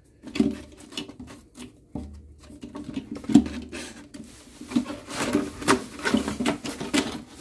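Boxed accessories and cardboard packing being handled inside an empty glass aquarium: cardboard and plastic rustling and scraping, with many irregular light knocks, busier in the second half.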